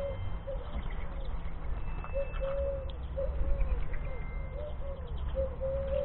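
Eurasian collared dove cooing: a run of low coo notes in repeated phrases, short notes mixed with longer drawn-out ones.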